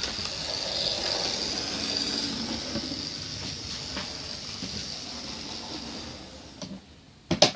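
N gauge model train running along the track, a steady whirring rattle that fades away after about six seconds. A couple of light clicks follow, then a sharp knock just before the end.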